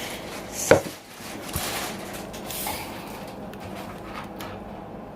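Rustling and light clatter of food and takeout packaging being handled at a table, with one sharp knock under a second in.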